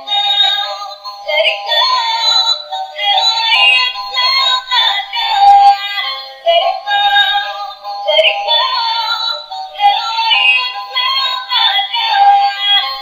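Dancing Chhota Bheem toy playing a looping electronic song with a synthesized singing voice through its small built-in speaker, thin and without bass.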